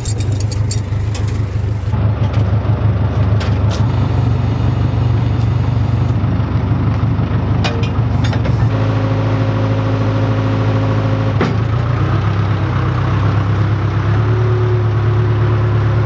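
Backhoe engine running steadily at a constant speed, with a few sharp metal knocks from the loader as timbers are handled.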